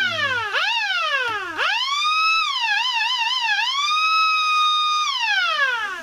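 Small electric motor siren wailing. It starts with a few short rising-and-falling whoops, then climbs to a steady high wail that wavers quickly in pitch a few times in the middle, and winds down in a long falling glide near the end. The motor runs on a direct test connection, so it needs no rewinding.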